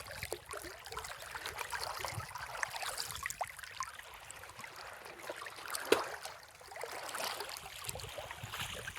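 River water trickling and lapping, with many small irregular splashes and one sharper tap about six seconds in.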